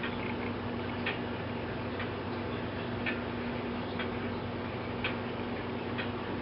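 Eight-day weight-driven tall case (grandfather) clock ticking steadily, about one tick a second, with a steady low hum underneath.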